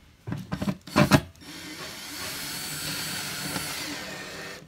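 A few knocks as the bit is set on the screw, then a cordless drill/driver runs steadily for about three seconds and stops abruptly. It is driving a machine screw into a toggle-type drywall anchor, drawing the toggle tight against the back of the drywall.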